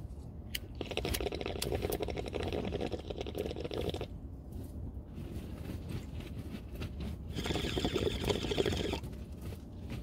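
Water bubbling in a bong as smoke is drawn through it: a steady gurgle from about one to four seconds in, then again for about a second and a half near the end.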